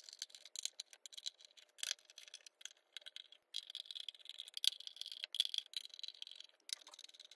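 Faint irregular clicks and rattles of a screwdriver undoing the screws on the back panel of a Philips Fidelio E5 subwoofer, with a thin high scraping sound from about halfway in until shortly before the end.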